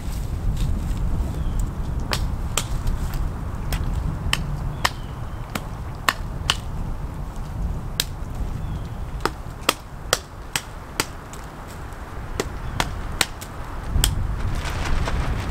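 Irregular sharp wooden chops and snaps, roughly one a second, as a thin sapling pole is trimmed by hand, over a steady low rumble of wind on the microphone that grows louder near the end.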